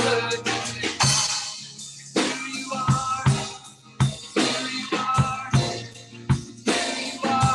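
Live band playing an instrumental stretch of a worship song: a drum kit keeps a steady beat with bass drum, snare and cymbals, a cymbal crash about a second in, under a strummed acoustic guitar.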